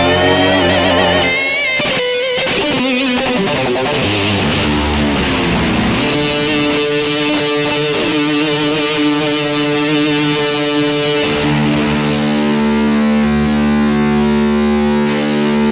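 Korg Pa5X arranger keyboard playing a distorted electric guitar voice. Over the first few seconds the notes waver and bend, with a long downward pitch glide. From about six seconds in they settle into held chords.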